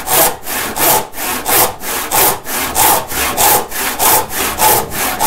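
Hand saw ripping along the grain of a board to resaw it, in steady back-and-forth strokes a little under two a second, each stroke a rasping hiss. The saw is running in an established kerf.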